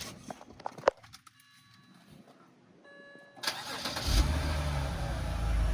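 BMW 325's straight-six engine cranked and started: a few clicks and short faint beeps, then the starter and the engine catching about three and a half seconds in and running at a low, steady idle. Turbo whistles are fitted in its exhaust, but no whistle can be heard.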